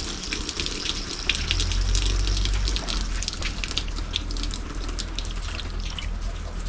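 Water running and splashing from a newly fitted tap on a water pipe, with a low rumble swelling for a second or so in the middle.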